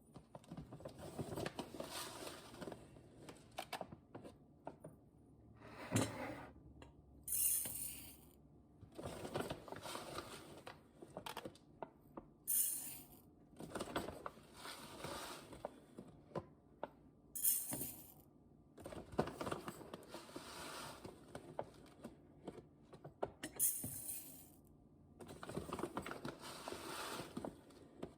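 Small hard dry goods rattling and pouring into containers in several bursts of a few seconds each, with clicks and knocks of containers being handled between them.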